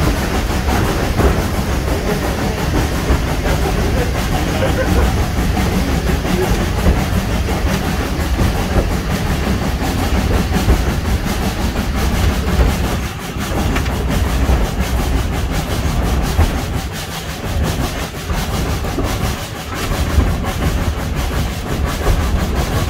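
A 1927 SACM 040 T steam tank locomotive and its carriages running uphill, heard from an open carriage coupled right behind the engine: a steady, loud rumble and clatter of wheels on rails with the locomotive working. It eases briefly a few times in the second half.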